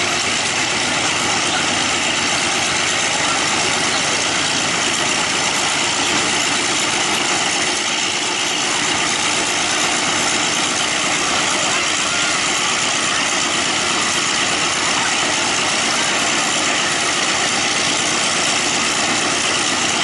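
Warbird radial piston aircraft engines running steadily and loudly, with no change in pitch or level.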